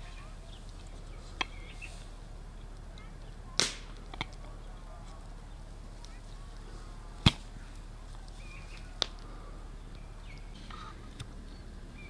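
Six short, sharp clicks or knocks at uneven intervals over a faint steady background, the loudest about seven seconds in.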